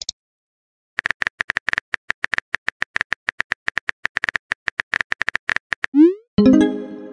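Phone-keyboard typing sound effect: a rapid run of light clicks for about five seconds as a text message is typed. Near the end comes a short rising swoosh and a ringing chime as the message is sent.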